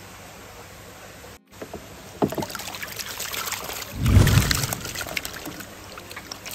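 Pond water sloshing and splashing around koi being netted in a mud-pond harvest, starting a little after two seconds in, with a heavy low thud about four seconds in as the loudest moment.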